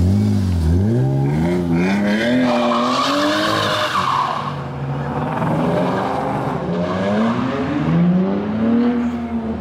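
Car accelerating hard away, its engine revving up through the gears with the pitch falling back at each shift, and a tyre squeal about three seconds in.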